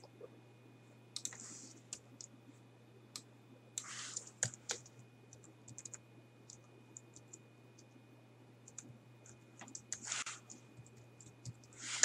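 Computer keyboard typing: irregular key clicks in short runs, with a few short bursts of hiss, over a faint steady low hum.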